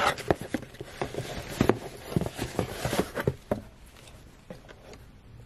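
Handling noise: a satin heatless curler and its packaging rustled and crinkled inside a cardboard box, a run of small crackles and taps that dies down after about three and a half seconds.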